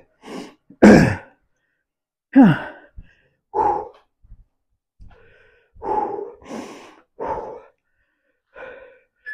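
A man breathing hard and sighing aloud while catching his breath between circuit exercises: a string of heavy exhalations with gaps between them, the loudest about a second in.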